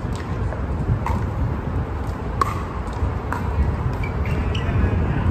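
Outdoor street ambience under an elevated highway: a steady low rumble of traffic and wind, with a few sharp knocks that ring briefly and some short high chirps near the end.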